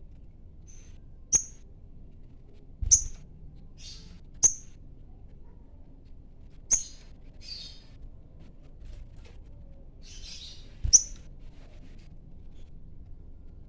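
A sogon bird in breeding condition calling to challenge a rival. It gives five short, sharp, high chirps one to four seconds apart, with softer raspy notes between them.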